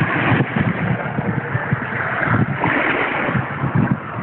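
Wind rumbling on the microphone over small waves washing up a sandy beach, the hiss of the wash swelling at the start and again about two seconds in.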